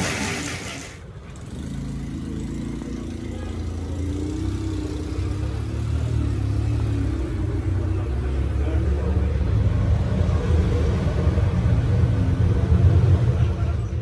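An engine running with a low rumble that slowly grows louder, then stops abruptly at the end.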